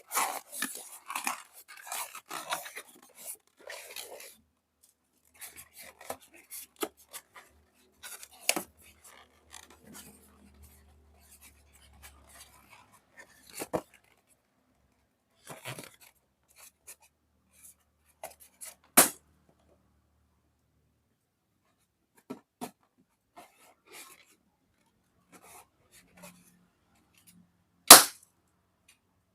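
Balloons popping: several sharp pops spaced seconds apart, the loudest near the end, among crinkly handling noise and small clicks, with crackling during the first few seconds.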